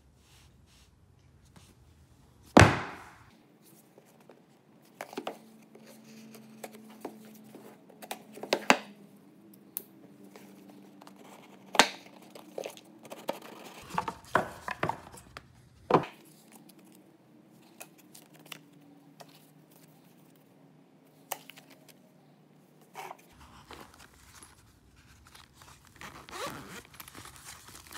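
Cardboard product box and packaging being handled on a wooden table: scattered thumps, knocks and scrapes with rustling between them. The loudest is a sharp thump about two and a half seconds in. Near the end, a busier stretch of rustling as the soft zippered pouch is handled.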